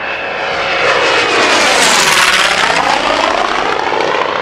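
Propeller-driven F4U Corsair-type fighter making a low pass overhead: its engine drone swells to a peak about halfway through as it goes by, then slowly fades.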